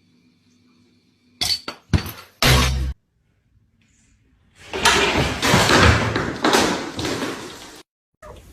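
Three sharp knocks in quick succession, then about three seconds of loud crashing and clattering, like something breaking.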